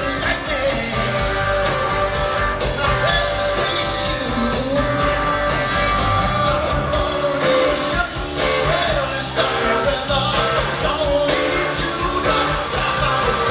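Live rock band playing, with guitars and a steady beat under a singing voice.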